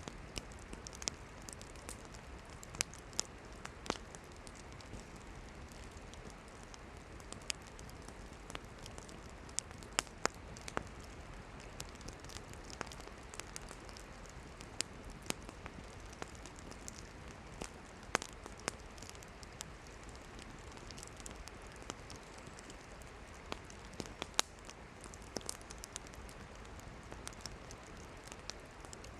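Campfire of burning firewood crackling: irregular sharp pops and snaps over a steady soft hiss.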